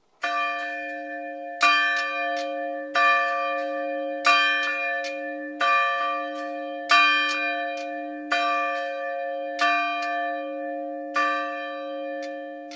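A single church bell tolling, struck about nine times at an even pace of a little under one and a half seconds, each stroke ringing on under the next. After the last stroke near the end the ringing dies away.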